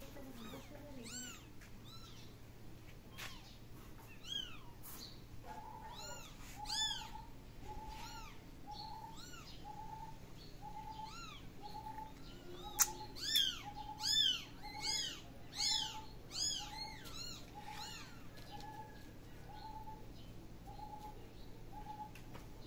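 Kittens mewing: high, arching meows off and on, with a quick run of louder meows about halfway through. Behind them a short, lower call repeats steadily a bit more than once a second from about a quarter of the way in, and a sharp click comes just before the loudest meows.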